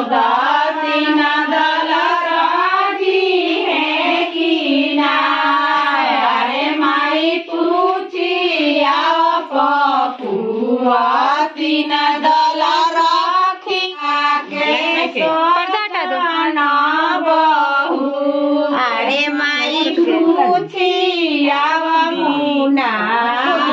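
A high woman's voice singing an unaccompanied, wavering melody in phrases, with brief breaks between them.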